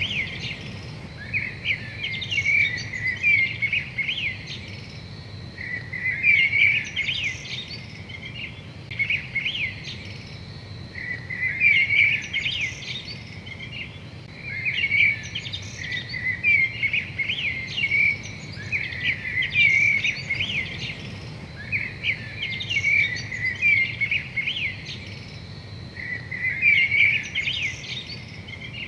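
A songbird singing short phrases of quick chirps and trills, repeated every two to three seconds, over a low steady hum.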